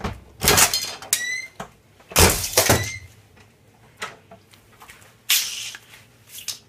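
A door slammed against a plastic CD jewel case on the floor: two heavy thuds with cracking plastic about half a second and two seconds in, a brief squeak between them, then lighter knocks near the end.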